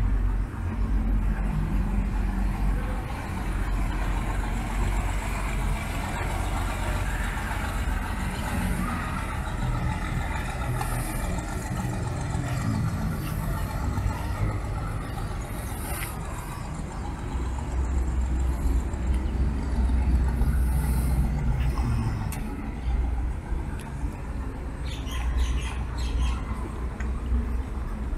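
A small river ferry boat's engine running, a low rumble that swells and fades over a steady wash of outdoor noise.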